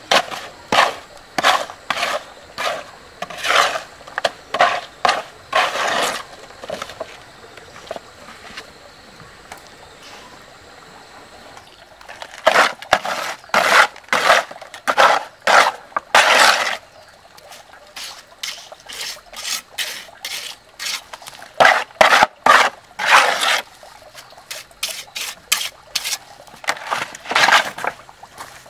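Trowel scraping and smoothing wet cement over a slab, in quick strokes. The strokes come in runs of several a second, with pauses of a few seconds between runs.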